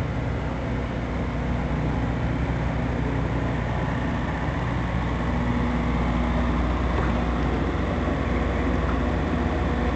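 A car engine running steadily at low revs, a continuous low hum that grows slightly louder about two seconds in.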